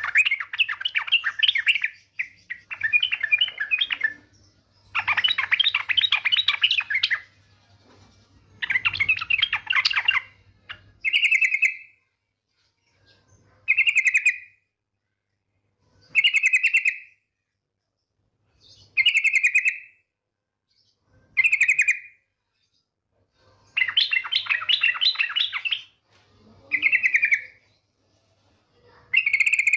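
Female yellow-vented bulbul (trucukan) calling. First come rapid chattering bursts of about two seconds each. Then shorter one-second phrases follow every two to three seconds, and the chatter returns near the end.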